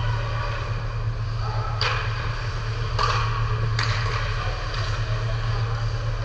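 Hockey game play: several sharp clacks of sticks and puck, about two, three and four seconds in, over a steady low hum.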